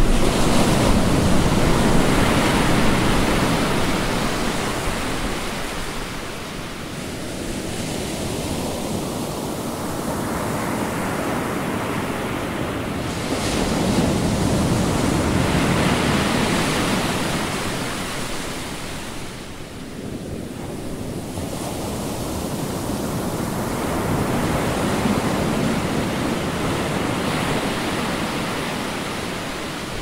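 Ocean surf breaking on a sandy beach on the Bay of Bengal coast: a steady rushing hiss that swells and ebbs in three slow surges as the waves come in and wash back.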